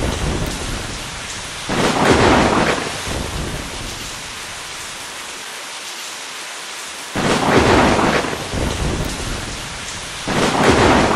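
Thunderstorm: steady heavy rain with three loud rolls of thunder, about two, seven and ten seconds in, each swelling suddenly and then dying away.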